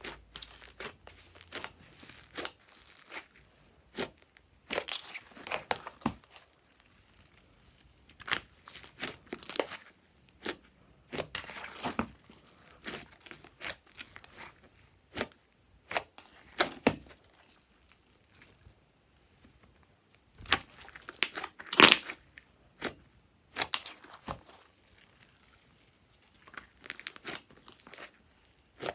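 Hands squeezing and kneading fluffy slime: irregular sticky squelches, crackles and small pops of trapped air, loudest about 22 seconds in.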